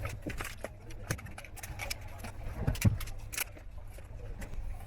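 Steady low rumble of the train running, heard inside the coach, with scattered clicks and taps of food packets and containers being handled close by and a dull thump about three seconds in.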